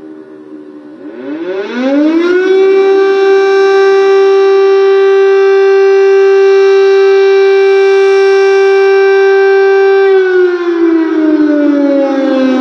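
Air-raid siren wailing. Its pitch climbs quickly about a second in, holds a loud, steady tone for about eight seconds, then starts a slow slide down near the end.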